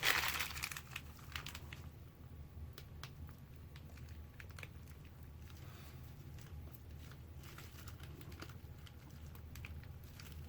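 Faint crinkling of a plastic piping bag being squeezed and twisted to force out the last of the soap frosting, with scattered small crackles over a low steady hum.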